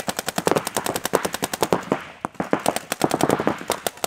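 Paintball markers firing in rapid strings, about a dozen shots a second, with a brief lull about two seconds in.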